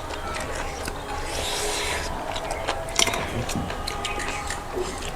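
Eating sounds of people eating rice and curry by hand: scattered small clicks and scrapes, with a brief hiss about a second and a half in.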